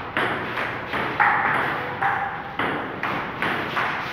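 Table tennis rally: a celluloid ball knocking back and forth off paddles and the table, about two hits a second, each hit trailing off in the bare room's echo.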